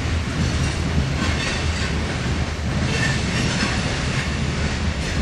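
Norfolk Southern mixed freight train cars rolling past: a steady rumble of wheels on rail, with brief high wheel squeals several times.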